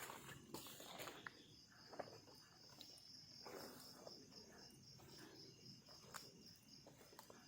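Faint insect chirping, likely crickets: an even, rapidly pulsing high trill that starts about a second in, with a few soft clicks over the quiet night background.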